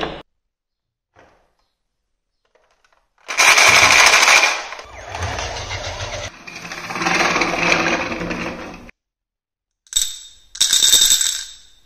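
Glass marbles rattling inside a plastic toy ambulance as it rolls away, a dense clatter lasting about five seconds. Near the end, marbles clink against each other in a small drinking glass, in two short ringing bursts.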